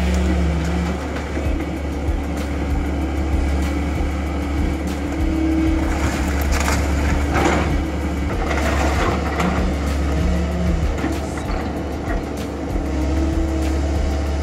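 Case tracked excavator's diesel engine running with a steady low rumble and hum while its bucket chews into a wood-frame house. Timber cracks and crashes several times, between about six and nine seconds in.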